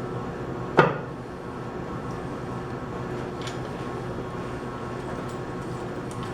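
A single sharp knock about a second in, then a few faint clicks over a steady hum: pump parts being handled and set together as the motor is fitted back into the pump volute.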